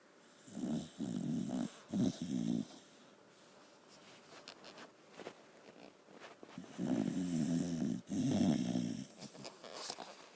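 Pit bull terrier snoring: a bout of several short snores, then about four seconds of soft breathing, then two longer snores.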